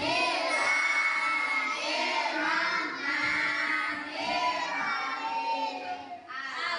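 A group of young children singing together in unison, with long held notes.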